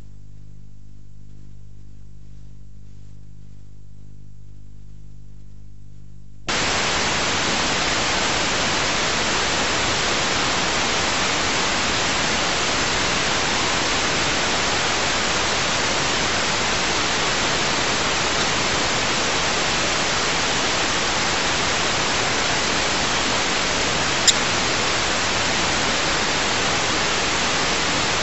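Faint low hum that gives way suddenly, about six seconds in, to loud steady static hiss like white noise, with a single sharp click near the end.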